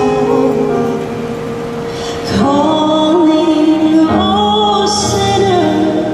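Slow hymn with sustained accompaniment chords. From about two and a half seconds in, a woman sings long held notes with vibrato, changing note about a second and a half later.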